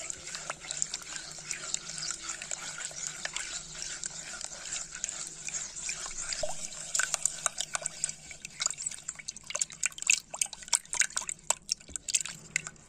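A spatula stirring a thin mixture of milk, sugar, flour and starch: liquid sloshing and dripping, with many small taps and scrapes against the side of the vessel. The taps come faster and louder from about seven seconds in.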